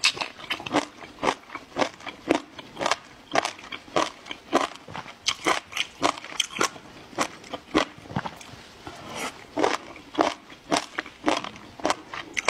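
A person chewing crunchy food close to the microphone: a steady run of crisp, crackling crunches, about three a second.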